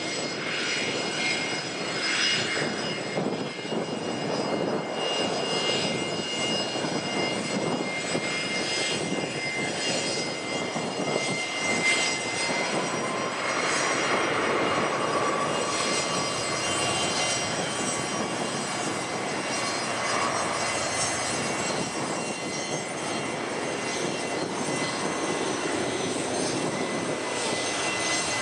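Airliner engines running steadily: a continuous rushing noise with a faint high whine.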